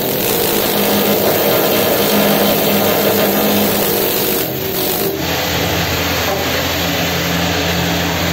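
Ship's machinery running: a loud, steady mechanical drone with a low hum. The sound shifts slightly about five seconds in.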